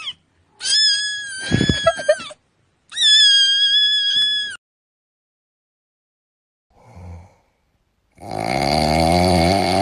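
A kitten screaming: two long, high-pitched cries of about a second and a half each. About eight seconds in, a cat starts snoring.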